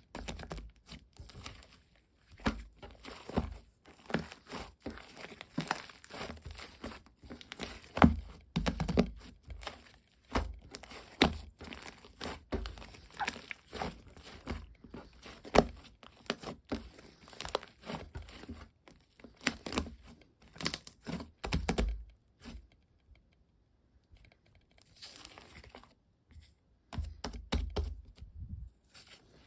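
Green slime with foam mixed in being squished and pressed by hand, giving a dense run of sticky clicks and crackles. There is a brief pause about three-quarters of the way through.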